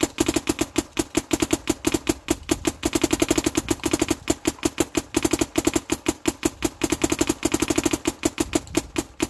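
Planet Eclipse Etha 2 electropneumatic paintball marker firing on compressed air in a fast, unbroken string of sharp pops, paint being ripped through it as quickly as it will feed.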